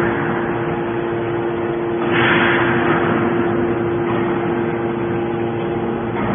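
Hydraulic aluminium can baler running: a steady motor-and-pump hum, with a rush of hiss that swells about two seconds in and then fades back.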